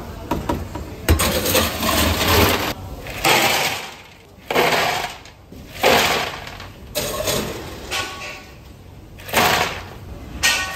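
Ice cubes from an ice machine's bin tipped load after load into a large stainless-steel bowl: a crunching clatter of ice on ice and metal. It comes in about seven separate pours, one every second or two.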